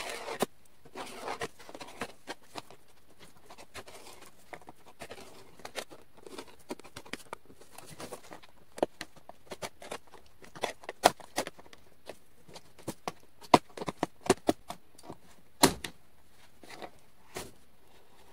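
Box cutter blade cutting through the hard plastic lid of a Sterilite storage tote: irregular scraping crackles and sharp clicks as the blade is worked along, with a few louder snaps in the second half.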